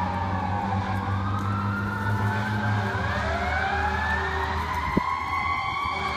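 Fire truck's Federal Q2B mechanical siren winding down, its pitch falling over about the first second. From about three seconds in it spools back up in a slow rising wail. A steady low engine drone runs underneath, and there is a brief click about five seconds in.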